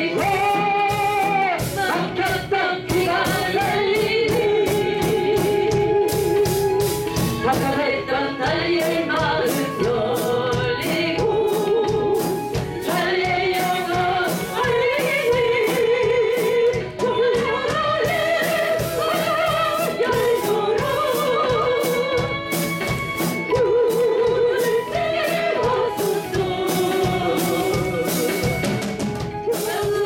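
A church choir, with women's voices to the fore, singing a gospel song into microphones over a live band with a drum kit. The voices hold long notes with a wide vibrato, and the drums keep a steady beat throughout.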